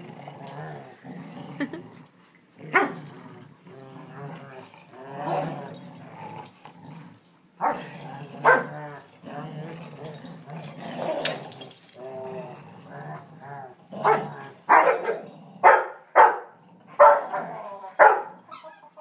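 Two dogs, a Rottweiler and a Rhodesian ridgeback mix, growling in play while tugging at a plush toy. In the last five seconds a quick string of about eight loud, sharp barks comes from the Rottweiler.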